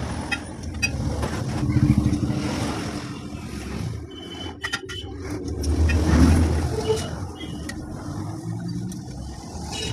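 Passing street traffic: motor vehicles rumble by, swelling and fading twice, with a few light clicks and taps mixed in.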